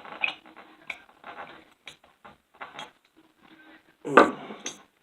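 Metal parts of a Craftsman hand ratchet's head clicking and scraping irregularly as the freshly greased gear mechanism is worked back into the head, with a louder clack about four seconds in.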